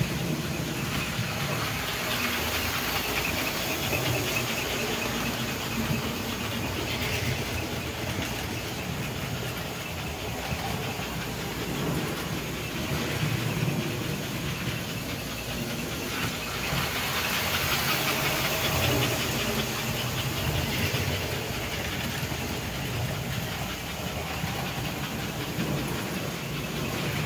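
1954 American Flyer S-gauge toy train running on the layout track: the steady hum of its electric motor and the running noise of its wheels on the rails.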